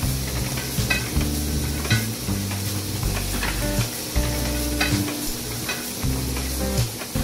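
Chandler & Price platen letterpress running through its print cycle, the platen closing and opening with a steady clatter and repeated mechanical knocks as cards are hand-fed.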